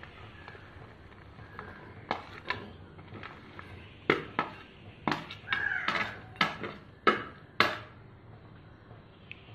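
A steel spoon tapping and scraping on a banana leaf and the rim of a steel bowl as grated chocolate is pushed into the bowl: a dozen or so sharp taps and clinks, some ringing briefly, coming closest together in the middle.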